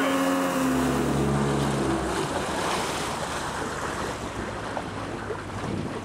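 A 50 hp outboard motor pushing a boat upriver, its pitch stepping down as it throttles back, then fading out about two seconds in. The rush of river water and wind on the microphone carry on after it.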